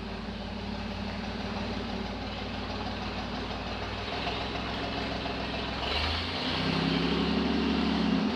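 Buick V6 engine of a 1968 Jeepster Commando running steadily, then rising in pitch and getting louder about six seconds in. The engine is misfiring on one cylinder.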